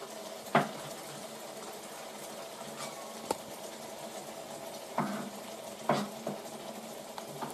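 Chopped shaggy ink cap mushrooms cooking in butter and their own juices in a frying pan: a steady low bubbling with a few sharp pops. The high water content makes the pan more of a simmer than a fry.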